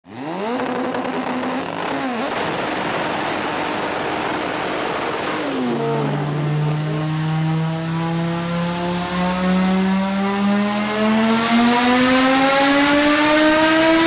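Turbocharged inline five-cylinder engine of an Audi UrS4 on a chassis dyno. It revs and falls back a few times in the first half, then from about six seconds in makes one long pull, its pitch climbing smoothly and steadily.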